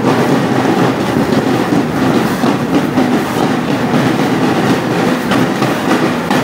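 Marching drum corps playing snare and bass drums in a dense, steady, rapid cadence.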